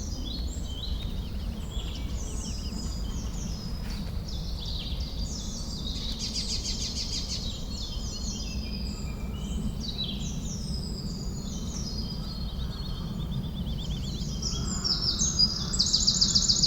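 Forest birdsong: several birds chirping, warbling and giving fast trills over a steady low background rumble.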